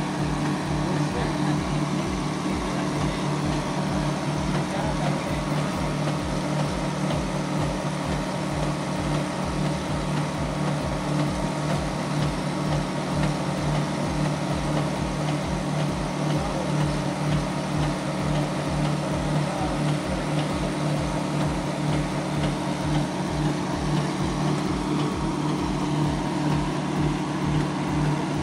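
Engine of a 2-inch concrete line pump running steadily, with an even, rapid low pulsing under a constant hum as it pumps concrete.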